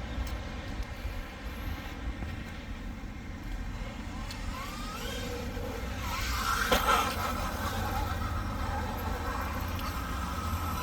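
Large electric RC truck (Losi Super Rock Rey) driving, its motor and drivetrain running over a steady low rumble, with a short rising whine about four seconds in and a louder burst of noise near the middle.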